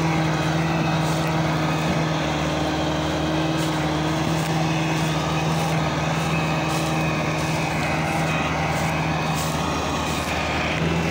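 Massey Ferguson 375 tractor's diesel engine running steadily at a constant pitch while hauling an overloaded trolley of sugarcane.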